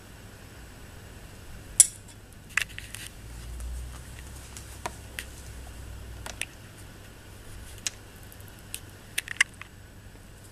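A metal spoon clicking and tapping against a plastic feeding tub as pellets are pushed toward a turtle's mouth. The sharp taps come at irregular intervals, the loudest about two seconds in, with a quick run of taps near the end.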